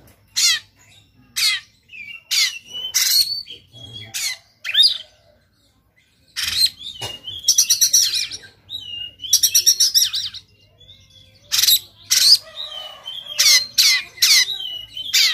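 Oriental magpie-robin (kacer) singing in short bursts of harsh, rasping notes mixed with whistles, with two fast rattling trills just after a brief pause in the middle. This is its aggressive fighting song, the harsh rapid 'tembakan' notes of a male worked up and opening its tail.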